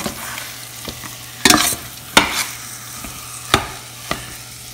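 Metal spatula scraping and knocking against a stainless steel saucepan while stirring a thick mashed sweet potato mixture frying in butter, with a faint sizzle. There are several sharp scrapes about a second apart, the loudest a little after a second in, over a steady low hum.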